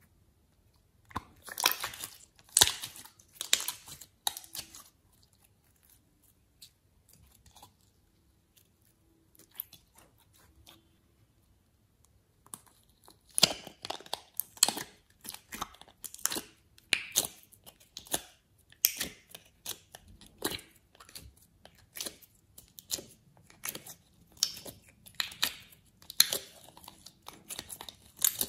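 Slime and soft modelling clay squished and pulled by hand, making sticky crackling clicks and pops. There is a run of it in the first few seconds, a quiet spell, then steady crackling from about 13 seconds in.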